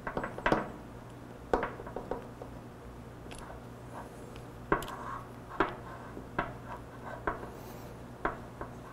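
Irregular light clicks and taps of a brake hose's metal banjo fitting and bolt being handled and fitted against a motorcycle front brake master cylinder, with quiet rubbing between them.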